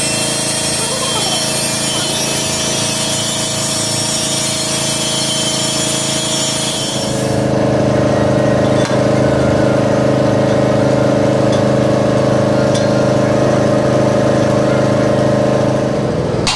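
A power tool or workshop machine running steadily. About seven and a half seconds in the sound changes abruptly: the high hiss drops away and a lower, steady hum remains, with a few faint ticks.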